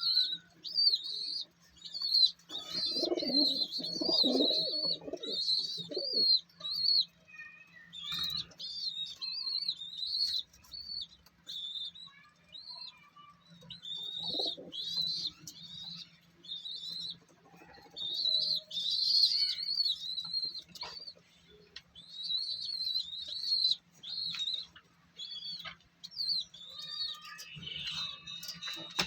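Birds chirping almost without a break in rapid, high, wavering calls, with pigeons cooing lower underneath about three seconds in and again around the middle. A faint steady hum runs beneath.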